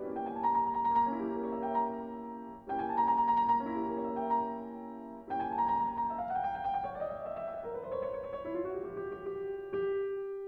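Background piano music: struck chords about every two and a half seconds, their notes rising and falling, and a last chord near the end ringing into a held note.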